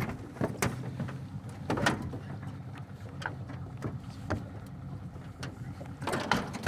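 Scattered knocks and clicks of gear and bodies against a small fishing boat as a snagged paddlefish is hauled to the side, over the low, steady hum of the boat's motor.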